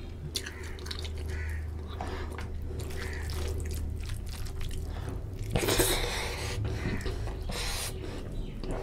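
Close-up wet eating sounds of a person eating rice and chicken curry by hand: chewing and lip smacks, and squelching as fingers mix rice into the gravy, louder for a moment about halfway through. A steady low hum runs underneath.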